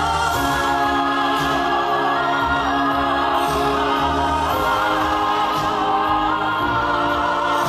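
Show music played over loudspeakers: a choir sings long, held chords that change every few seconds.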